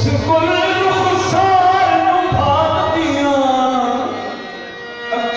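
Qawwali: male voices singing a gliding melody over held harmonium chords.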